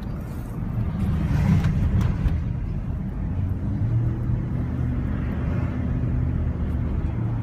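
Car driving on a wet road, heard from inside the cabin: a steady low engine hum under the hiss of tyres on water, briefly louder between about one and two seconds in.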